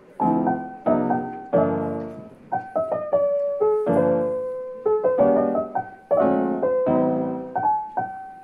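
Background music: a piano playing a gentle melody over chords, each note struck and then fading.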